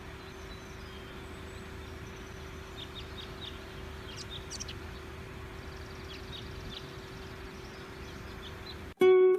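Outdoor ambience: a steady background rush with a low steady hum, and small birds giving short high chirps from about three seconds in. Plucked-string music cuts in abruptly near the end.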